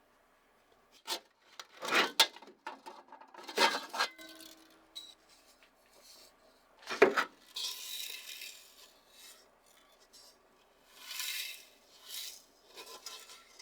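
Hand-tool work on hard parts: a series of separate scraping strokes and knocks, the loudest about seven seconds in, with short stretches of rasping, like filing or scrubbing, later on.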